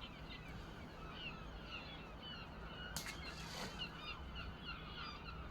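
A flock of birds chattering, many short high chirps overlapping, with a single sharp click about three seconds in.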